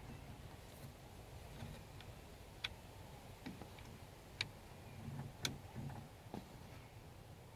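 Irregular light clicks and taps of small door-handle parts being handled as the release cable is hooked onto the interior door handle, about five sharp clicks spaced roughly a second apart.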